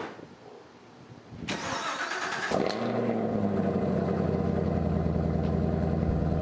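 Chevrolet Camaro ZL1 1LE's supercharged 6.2-litre LT4 V8 being started: the starter cranks about a second and a half in, the engine catches about a second later with a brief rev flare, then settles into a steady idle.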